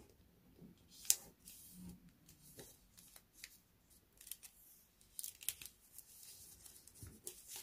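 A sheet of colored origami paper being folded and pressed into creases by hand: faint, scattered paper rustles and crackles, the sharpest about a second in.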